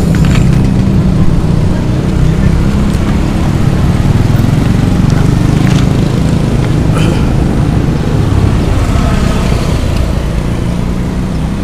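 Steady low rumble of motor-vehicle engines from road traffic, with a few brief faint clicks.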